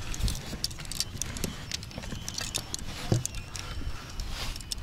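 Fishing gear being handled: many light metallic clicks and clinks and a few soft knocks, over a low rumble of wind on the microphone.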